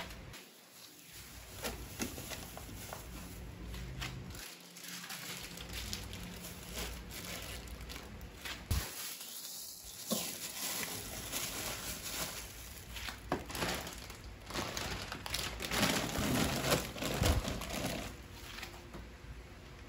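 Plastic food packaging crinkling, with short knocks and clicks, as frozen items are handled and rearranged inside a small refrigerator's freezer compartment. The handling is busiest and loudest near the end.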